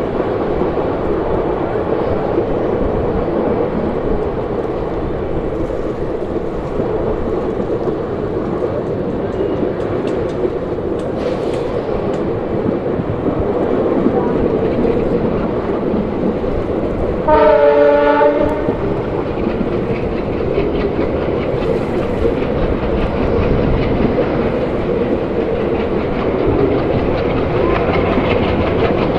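Uttaranchal Express passenger train running along the track with a steady rumble. About two-thirds of the way through, a multi-tone train horn sounds once for about a second.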